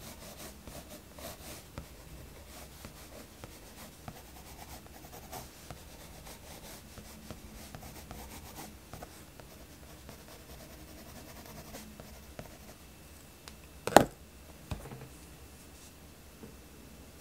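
Mechanical pencil shading on sketchbook paper: faint, irregular scratching strokes. Near the end comes a single sharp knock, with a smaller one just after, as the pencil is set down.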